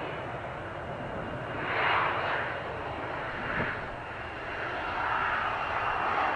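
Boeing 747 jet engines running at takeoff power: a steady rushing roar with a thin high whine above it, swelling about two seconds in and again near the end.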